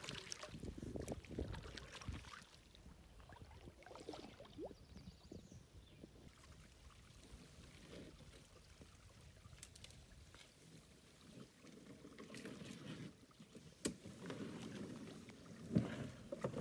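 Canoe paddle strokes splashing and dripping for the first couple of seconds. Then it goes quieter, with scattered knocks and scrapes as a loaded canoe is hauled up over rock. The sharpest knock comes near the end.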